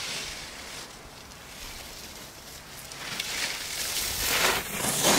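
Skis hissing and scraping over packed snow as a skier carves turns and passes close by, building up over the last two seconds.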